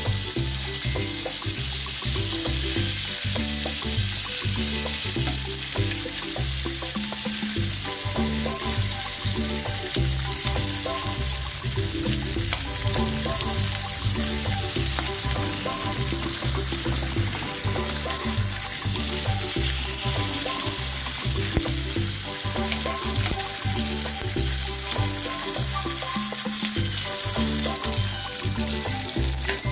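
Bacon strips sizzling steadily in a hot nonstick wok. Under the sizzle runs background music with a low, changing bass line.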